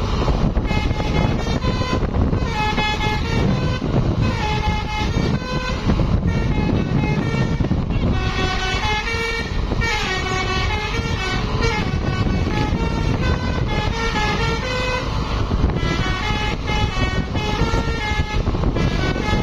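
Bus 'telolet' musical air horn playing a rapid tune of short notes that step up and down, again and again, over the steady low rumble of the running bus.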